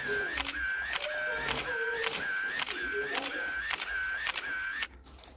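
Phone camera shutter sounding over and over, about two a second, photos taken in quick succession; it stops suddenly near the end.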